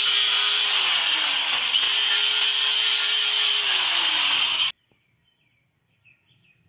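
Electric grinder grinding a steel axe head, its motor pitch sagging twice as the blade is pressed into it. The sound cuts off abruptly about four and a half seconds in.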